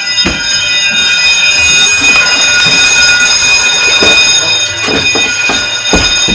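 Fire alarm sounding one steady, unbroken buzzing tone, set off by smoke from a broken V-belt and steam on an overheated auxiliary engine. A few dull knocks come through it.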